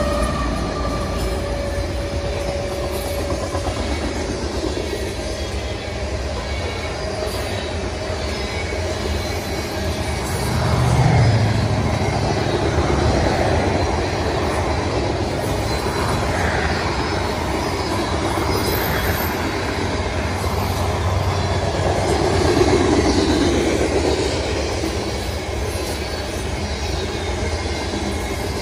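BNSF grain train of covered hopper cars rolling past close by: a steady rumble and clatter of wheels on the rails that swells about eleven seconds in and again near twenty-three seconds. The lead diesel locomotives are still passing as it begins.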